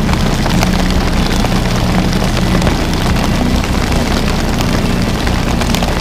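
Outboard motor running steadily while trolling, with rain hitting the boat.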